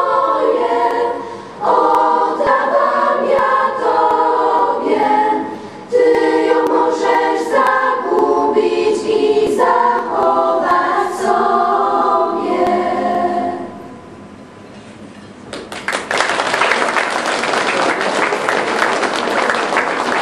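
A school choir singing unaccompanied, the song ending about thirteen and a half seconds in. After a short pause, the audience applauds.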